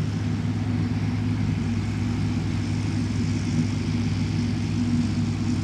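Large truck engine sound effect running steadily at a low, even pitch.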